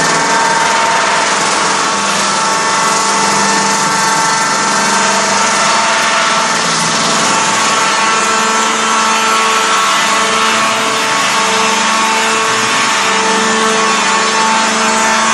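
Gulin BM270 beam-sawing machine running, its two circular saws cutting through a log: a loud, steady whine over a dense hiss that swells and eases a little.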